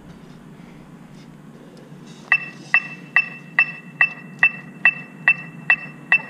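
Sharp, evenly spaced clicks keeping a steady tempo, about two and a half a second, starting about two seconds in.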